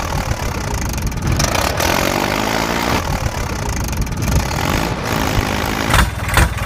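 Tractor engine sound running, its pitch rising and falling a few times, then breaking into a slow, regular chug near the end. It is an engine recording played over toy tractors, which have no engines of their own.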